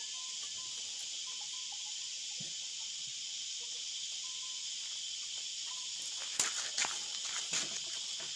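Steady high insect chorus. About six to seven and a half seconds in, a handful of sharp clicks and rustles come from bamboo strips being bent and threaded into a woven bamboo basket.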